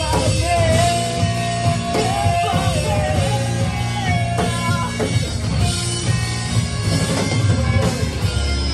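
Live rock band playing with drum kit and electric guitars, a held melody line sliding between notes over the first few seconds, heard from the audience floor of a small club.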